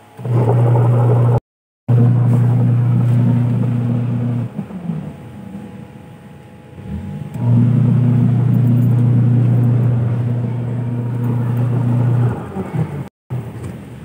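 Sharp ES-6030T twin-tub washing machine's wash motor running with a steady low hum as it turns the pulsator. It stops about four seconds in and starts again about three seconds later, as in the wash cycle's stop-start. The motor is turning strongly on a newly fitted capacitor.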